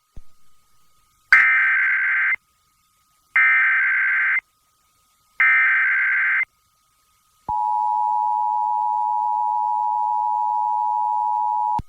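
Emergency Alert System SAME header: three one-second bursts of warbling digital data tones, evenly spaced about two seconds apart. Then comes the steady two-tone EAS attention signal, held for about four seconds before it cuts off. Together they open a Required Monthly Test alert.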